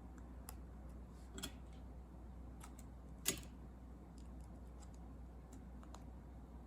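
Faint, scattered small clicks and taps of handling an iPhone while taking out its SIM card, with one sharper click about three seconds in.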